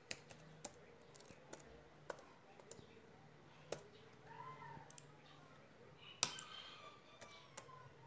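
Faint, irregular key clicks of a computer keyboard as an email address is typed.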